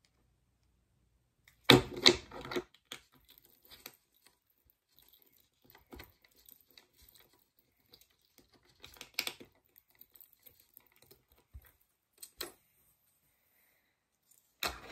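Scattered clicks and clatter of small fingerboard parts being handled as the trucks are bolted onto a fingerboard deck. The loudest burst comes about two seconds in, with a few smaller ones later.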